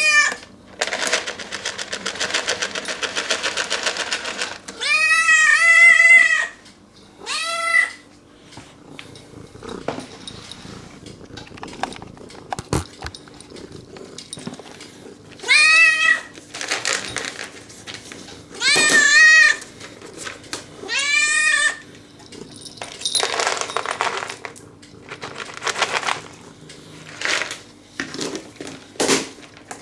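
Domestic cat meowing for a treat, about five calls, one long drawn-out meow near the start and several shorter ones later. Stretches of rustling noise come in between.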